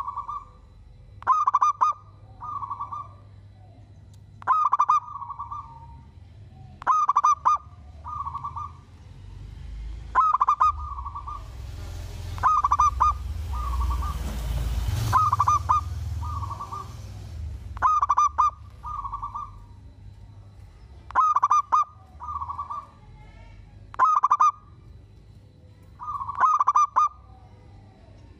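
Zebra dove (perkutut) cooing, a repeated phrase every two to three seconds: a sharp clipped note followed by a softer, lower coo. A stretch of hiss and low rumble runs through the middle.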